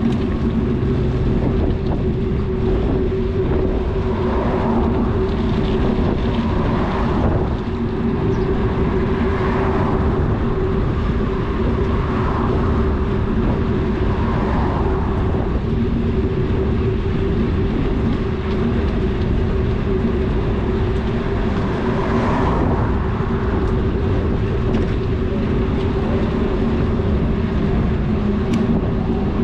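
Steady wind rush and rolling noise from riding a bicycle, with a constant low hum and soft swells about every two to three seconds.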